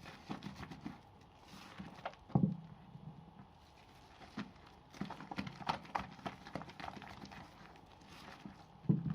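Wet bar soap being lathered by hand: irregular squelching and sticky clicking, with a soft thump about two seconds in and another near the end.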